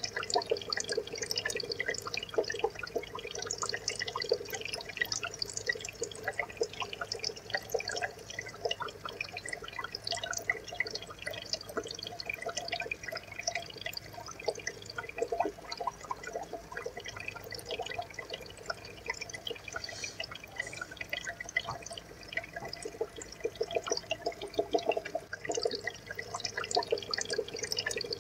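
Aquarium water trickling and bubbling: a steady, dense patter of small drips and splashes.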